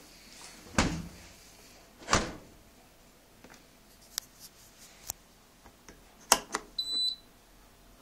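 Hands working a Gorenje dishwasher's front: two knocks against the door panel, a few sharp clicks of its push button and program knob, then one short high beep from the control panel about seven seconds in.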